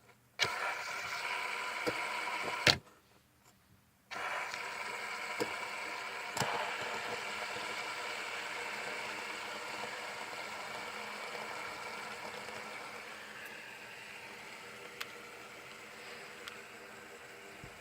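Fidget spinner flicked into a spin and whirring on its bearing, cut off with a sharp click after about two seconds. Spun up again about four seconds in, its whir slowly fading as it spins down.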